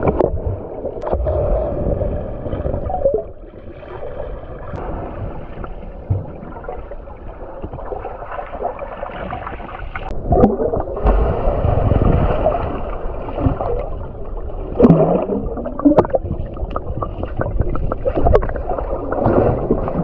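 Muffled churning water and rushing bubbles heard underwater as swimmers dive and kick, with scattered clicks and knocks. It swells louder a few times, most strongly about halfway through and again around three quarters of the way in.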